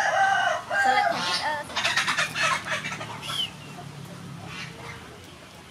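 A chicken clucking, a run of calls over the first three and a half seconds, then fading to a low background.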